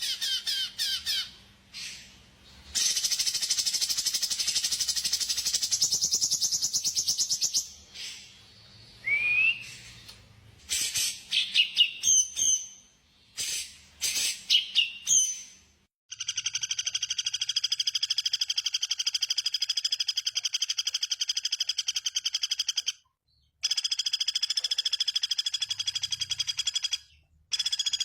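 Songbird song: long, very fast trills broken by short chirps and a rising whistle, then a steady, rapidly pulsed buzzing trill from about halfway through that stops briefly once.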